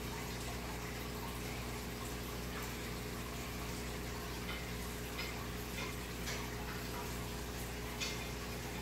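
Aquarium airstones bubbling steadily, the air bubbles breaking at the water surface with faint scattered pops, over a steady low hum.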